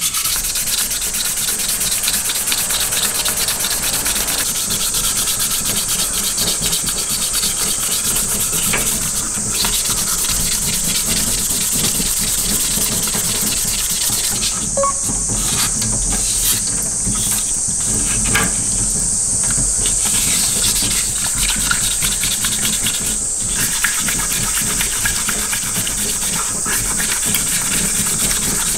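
Wet-sanding a metal sierra cup with 1000-grit waterproof sandpaper under a running tap: continuous rapid rubbing strokes over the steady hiss of running water, with a few brief pauses in the strokes midway.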